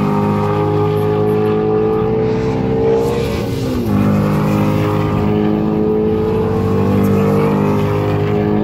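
Ford Shelby GT350R's 5.2-litre flat-plane-crank V8 running as the car passes along the track, its pitch climbing slowly, dipping sharply a little under four seconds in, then climbing again.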